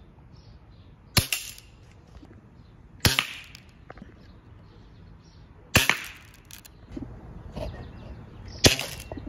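Daisy Buck .177 spring-air lever-action BB rifle fired four times, one sharp snap each, about two to three seconds apart, the last one the loudest. Fainter handling sounds fall between the shots.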